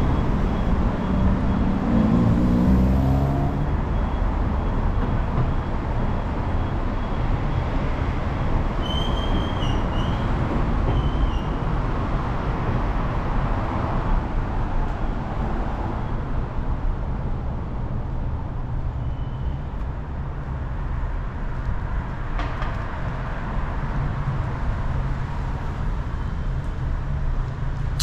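City street traffic: a steady rumble of cars on the road next to the sidewalk. About two seconds in, one vehicle's engine rises in pitch as it speeds up, and a few short high chirps come about nine to eleven seconds in.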